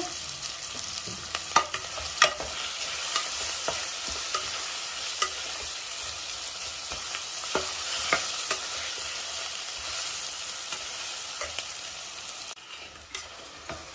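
Tomatoes, onions and green chillies sizzling in oil in a pan while a spatula stirs and mashes the tomato, tapping and scraping against the pan now and then. The sizzle drops off about a second before the end.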